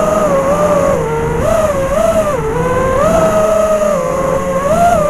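Brushless motors and 5040 propellers of a 5-inch FPV quadcopter (2306 2750 kV motors on 4S), heard from the onboard camera: a whine that rises and falls in pitch several times with the throttle, lowest about two and a half seconds in.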